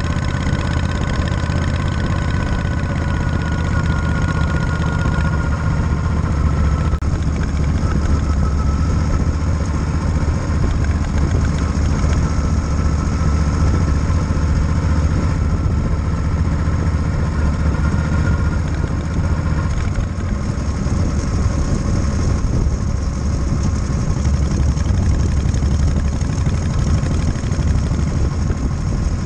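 A 1937 Matchless Model X's side-valve V-twin engine running steadily, with no break or change in pace.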